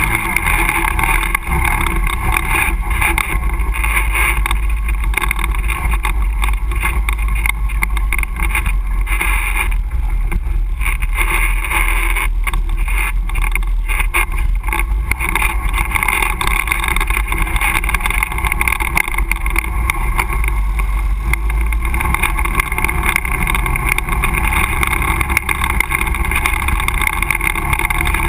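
ATV engine running steadily while the quad rides over a rough dirt trail, heard close up from the machine itself, with frequent knocks and rattles from bumps.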